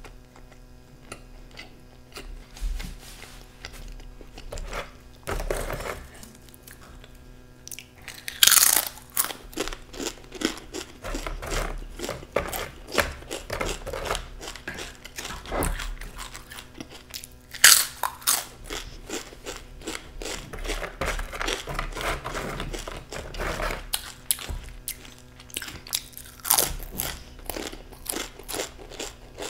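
Close-miked crunching of tortilla chips being bitten and chewed. Softer chewing at first, then dense crackling from about eight seconds in, with two loud crunching bites, one about a third of the way through and one just past the middle.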